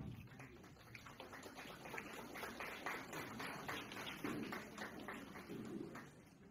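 Audience applauding, many hands clapping, easing off near the end.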